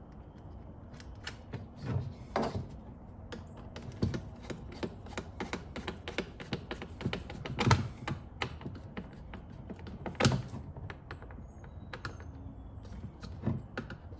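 Tools and small hardware being handled during light-fixture mounting: a dense, irregular run of clicks and rattles, with a few louder knocks about two, two and a half, seven and a half, and ten seconds in.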